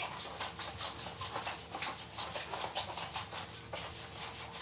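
Hands rubbed briskly together, palm against palm, in a fast even back-and-forth at about six strokes a second, the friction warming the palms.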